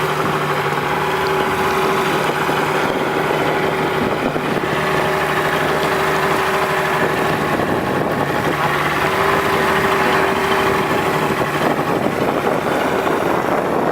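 Two-stroke speedboat engine, converted to run on LPG instead of petrol, running steadily at an even pitch.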